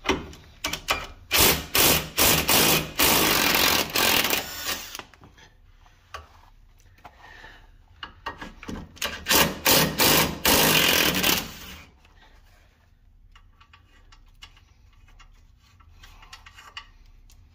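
Socket ratchet clicking in fast runs as 17 mm suspension bolts are backed off: a long run in the first few seconds, another from about halfway, then fainter scattered clicks near the end.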